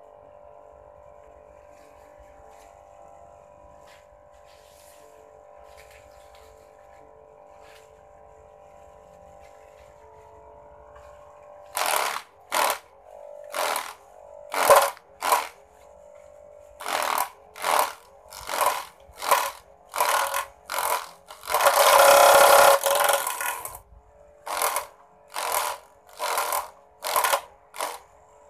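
Small electric motor, salvaged from a toy car, driving a homemade mini grass chopper, running with a steady whine. About twelve seconds in, grass stalks fed into it are chopped in a series of short, loud bursts of cutting noise, one lasting about two seconds, the motor's pitch dipping under each load.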